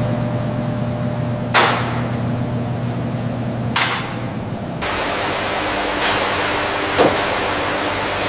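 Factory machinery running steadily, broken by three sharp knocks of the kind made by metal parts striking. About halfway through the background changes abruptly from a humming drone to a broader hiss.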